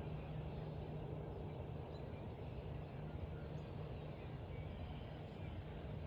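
Steady low rumble of distant road traffic, with a few faint, short bird chirps above it.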